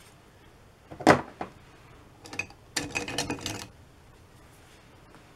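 Small clatter of painting tools being handled on a worktable: one sharp knock about a second in, then about a second and a half of light clicks and rattles.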